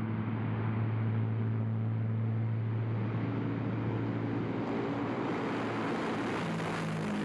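Tu-95MS bomber's four NK-12 turboprop engines with contra-rotating propellers running on the ground, a steady low drone with hiss that grows louder about halfway through and shifts pitch near the end.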